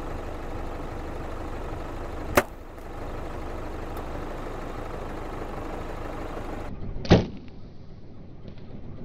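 Hoyt compound bow shot at a rabbit: a sharp crack about two seconds in, then a louder, duller thud about five seconds later, over a steady background hiss.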